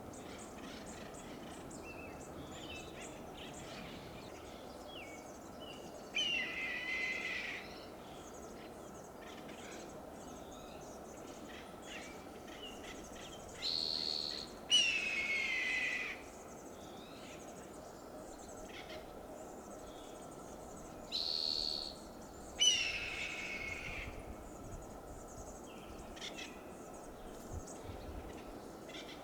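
Red-tailed hawk screaming three times, each a hoarse scream of a second or more that falls in pitch, the second and third led by a short high note.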